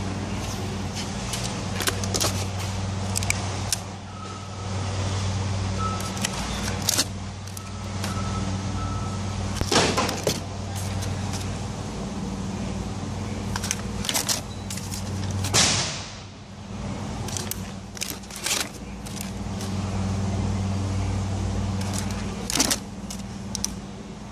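Steady machinery hum that swells and eases every few seconds, with scattered sharp clicks and knocks of plastic tomato clamshells being handled and set on a scale.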